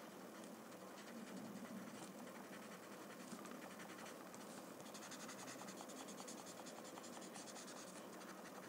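Paper blending stump rubbing graphite into a paper tile in quick short strokes: a faint scratchy rubbing that grows busier about halfway through.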